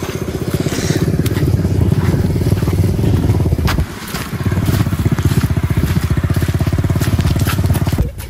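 Motorcycle engine running under way with a fast, even pulsing beat. The engine note drops briefly about four seconds in, then picks up again.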